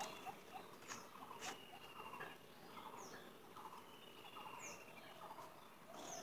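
Domestic ducks giving soft, short quacks every second or so, faint, while small birds chirp briefly a few times.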